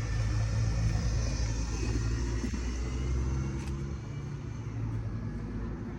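Steady low rumble of car or street traffic, easing slightly about four seconds in.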